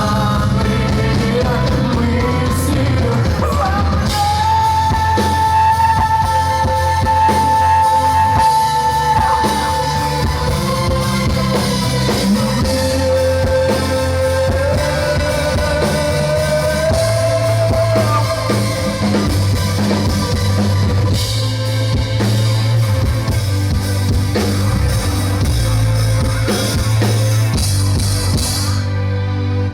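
Live rock band playing a song with a singer: drum kit, bass and guitar under long held notes. The song stops near the end.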